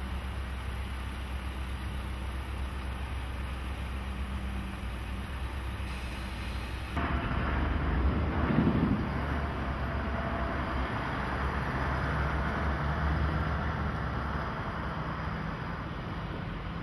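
Diesel truck engines running. First a semi tractor with a container chassis idles steadily. About seven seconds in the sound changes abruptly to a louder terminal yard tractor hauling a container past, loudest a second or two later.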